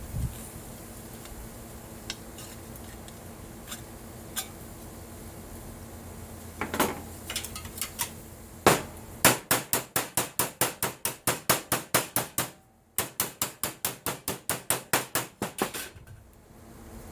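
Hammer tapping on an aluminum brace: a few scattered taps, then two fast, even runs of sharp blows at about five strikes a second, broken by a short pause.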